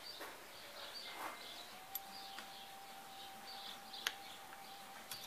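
Faint background bird chirps, repeating every half second or so. A few light metallic clicks come as the starter motor's end cap is handled and fitted, the sharpest about four seconds in, and a thin steady tone runs from about a second in.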